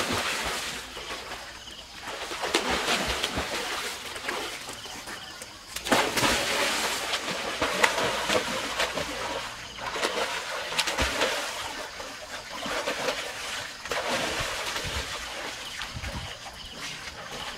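Water splashing in a small swimming pool as people come off a water slide and land in it, in surges every few seconds.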